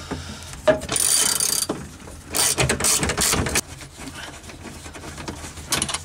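Socket ratchet clicking in short bursts as it backs out a 10 mm seat belt anchor bolt, busiest in the first half.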